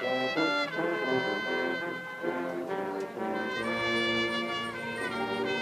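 Marching band hornline playing: brass playing a moving melodic passage that settles into a held chord, then swells with a new run of notes near the end.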